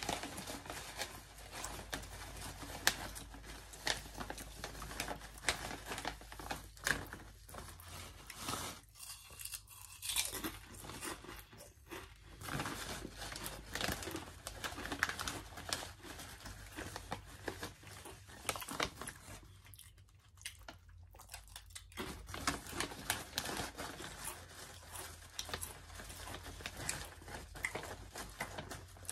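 A person crunching and chewing wavy potato chips with the mouth close to the microphone, in irregular crisp bites, with two short lulls about nine and twenty seconds in.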